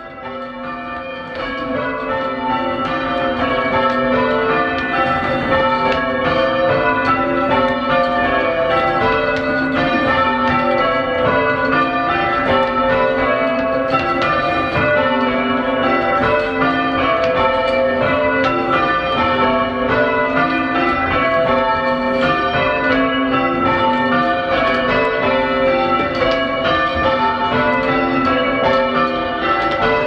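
A ring of five church bells, tenor 8-0-27 in A, being rung full circle in changes, the bells striking one after another in a fast, continuous rhythm. The sound fades in over the first few seconds.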